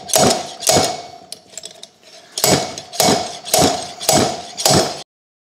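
Slide hammer on a blind bearing puller striking its stop in repeated metal-on-metal clangs that ring briefly, about two blows a second: two blows, a pause, then five more, cutting off abruptly near the end. The blows are driving out a stuck wheel bearing, which proved a lot tougher to shift than the one on the other side.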